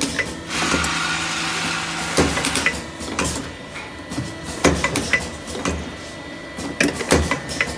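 Automatic bottle filling and capping machine running, its rotary table and capping head giving off repeated sharp clicks and clatters. A steady hiss with a low hum runs for about a second and a half near the start.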